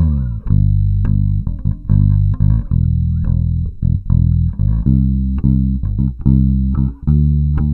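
Baracuda Axcess five-string electric bass played fingerstyle: a steady run of plucked low notes, with both pickups and all volume and tone controls turned fully up.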